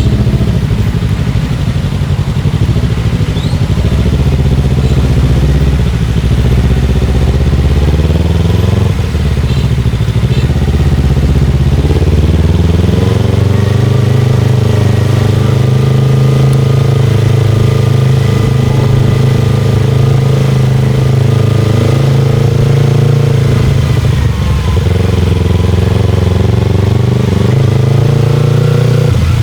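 Motorcycle engine running while riding, its pitch rising about twelve seconds in and holding steady, then dropping and climbing again near the end.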